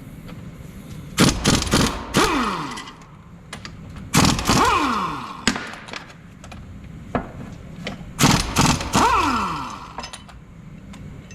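Power impact wrench run in three bursts to undo bracket bolts, each burst of rapid hammering followed by a falling whine as the tool's motor winds down.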